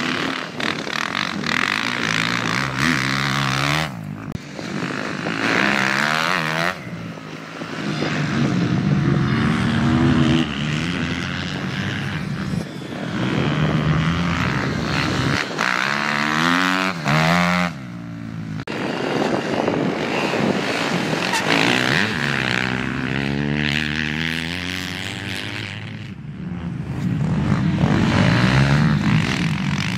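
Motocross dirt bike engines revving up and down as the bikes accelerate, shift and ease off around a dirt track. The sound jumps abruptly several times as one bike gives way to another.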